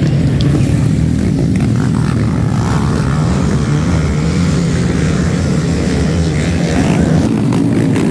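A pack of small racing motorcycles running hard together on a dirt track, a loud, steady massed engine drone.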